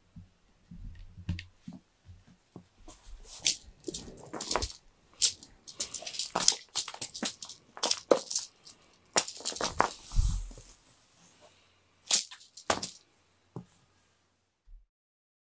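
Cat teaser toy being flicked and swished about, giving crinkly rustling and sharp crackling snaps in irregular bursts, with a dull thud about ten seconds in. The sounds stop shortly before the end.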